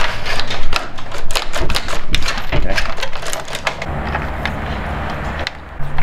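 Steel fish tape clicking and rattling as it is worked through metal-fitted electrical conduit to pull wire, a rapid run of clicks that thins out after about three seconds.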